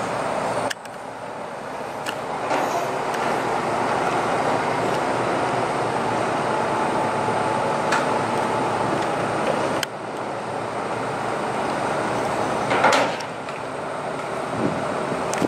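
Steady running noise of the engine of a truck-mounted aerial work platform, with a brief louder noise about thirteen seconds in.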